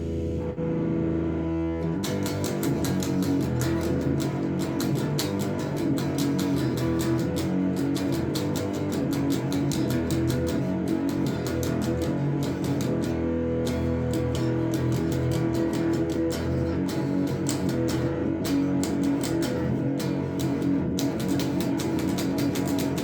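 Electric guitar played through a Behringer Super Fuzz fuzz pedal, improvising solo lines over a steady, repeating drum beat. It is heard from a distance, from a phone set well away from the amplifier.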